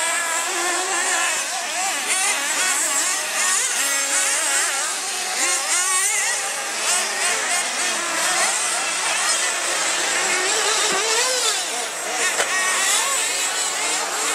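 Several radio-controlled off-road buggies racing at once, their small engines revving up and down in overlapping high-pitched whines.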